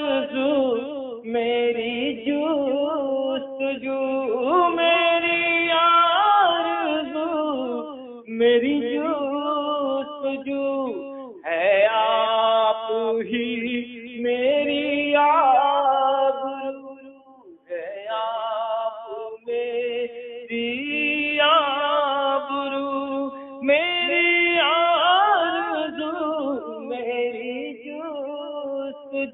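A man singing a naat (Urdu devotional song) without instruments, in long ornamented phrases with short breaths between lines and a brief pause a little past the middle.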